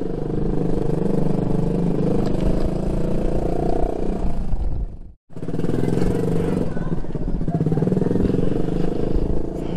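Motorcycle engine running steadily while the bike is ridden. The sound cuts out for a moment about five seconds in, then resumes unchanged.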